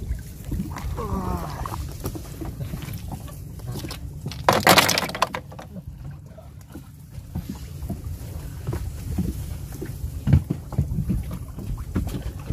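Wind rumbling on the microphone over water sloshing around a person working in floodwater. About four and a half seconds in there is a short, loud rush of noise.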